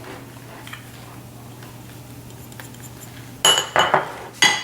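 A spoon clinking against a bowl three times near the end, each strike with a short ringing tone, as ground spices are added to the bowl.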